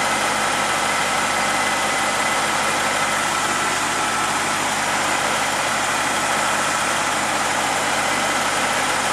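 2003 BMW 745i's 4.4-litre V8 idling steadily while its automatic transmission is being filled with fluid.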